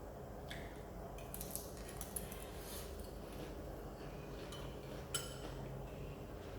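Eating utensils clinking and tapping against a dish in a few sharp, separate knocks over a low steady hum; the loudest clink, about five seconds in, rings briefly.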